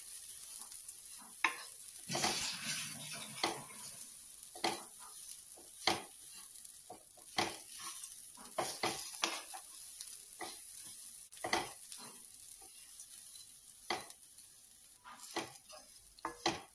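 Wooden spatula stirring and scraping grated coconut, coriander seeds and curry leaves as they dry-roast in a non-stick kadai, in irregular strokes about once a second. A light sizzle from the roasting coconut runs beneath.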